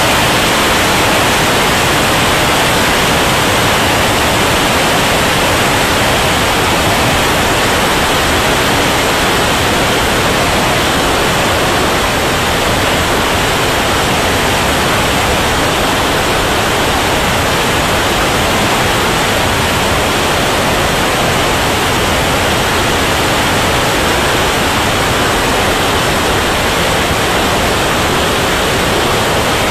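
Steady, loud rushing noise of an RC turbine jet in flight, heard from a camera mounted on the model: air rushing over the airframe mixed with the turbine's exhaust. It stays even throughout, with no distinct whine.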